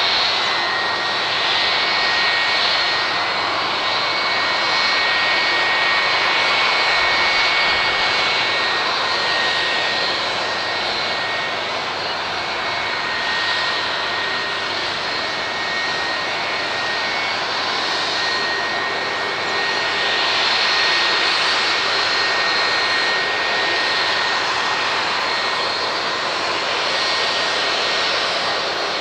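Widebody jet airliner's engines running steadily: a broad rush of jet noise with two steady, high whining tones over it.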